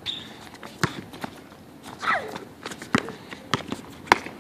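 Basketball bouncing and players' shoes hitting an outdoor concrete court: a scatter of sharp thuds, the loudest three near one, three and four seconds in. A short falling voice call about two seconds in.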